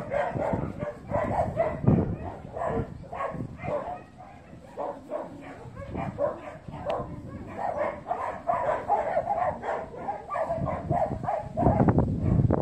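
A dog vocalizing in a long string of short, excited barks and yips, with a brief lull about four seconds in. Heavy low rumbles on the microphone about two seconds in and again near the end.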